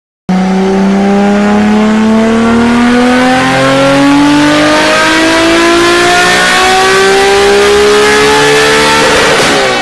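Car engine accelerating hard, its pitch climbing steadily over several seconds with small steps along the way. It starts abruptly and fades into music near the end.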